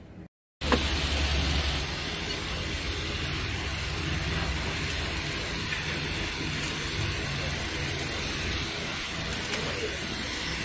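An engine running steadily at a constant speed, a low rumble with an even hiss over it, cutting in abruptly about half a second in after a moment of silence.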